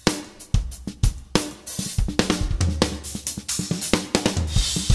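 Acoustic drum kit played in a busy groove: bass drum, snare and hi-hat hits several times a second, with a cymbal wash swelling near the end.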